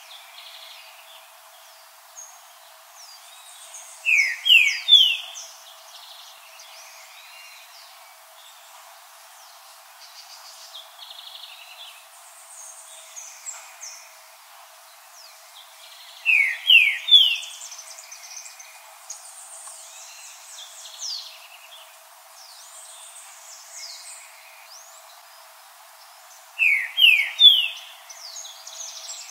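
Green-winged saltator singing: three loud phrases about ten seconds apart, each a quick run of three rising whistled notes. Fainter high chirps of other birds come in between.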